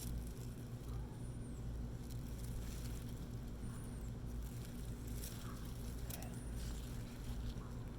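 Faint rustling and snapping of bean plants as the pods are picked, over a steady low hum. A thin, high bird note repeats about every two and a half seconds.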